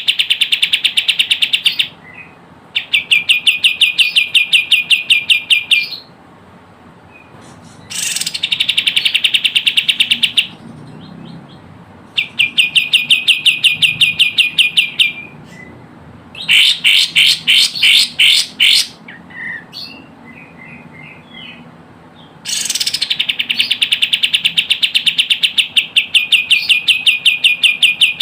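Kapas tembak bird calling in fast rattling trills of rapid repeated notes, about a dozen a second, in bursts of two to five seconds with short breaks between. This is a lure call played to draw in wild kapas tembak.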